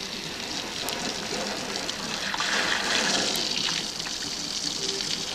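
Water running from a garden hose, a steady gush that grows louder for about a second near the middle.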